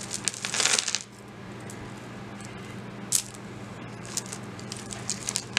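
Metal costume jewelry clinking as it is handled: a short jingle of small metal pieces in the first second, then a single click about three seconds in and a few faint clicks later.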